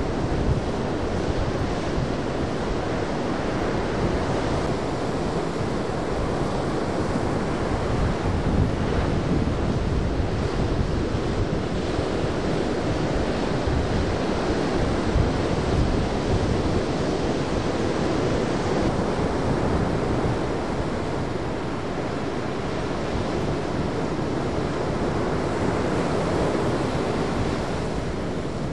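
Ocean surf breaking and washing in a steady rush, with wind buffeting the microphone.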